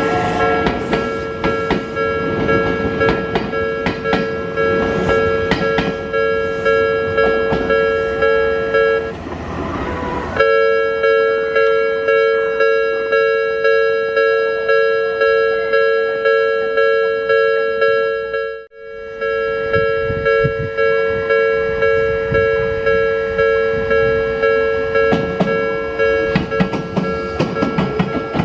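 Japanese level-crossing warning bell ringing in a fast, even, repeating rhythm. It stops briefly about nine seconds in and starts again. Over it, in the first part and again near the end, train wheels clack over the rail joints as an Odakyu 8000-series train runs through.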